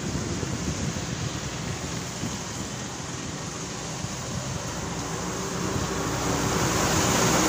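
Steady rushing noise of highway traffic with wind on the microphone; a heavy truck's engine grows louder near the end as it comes past.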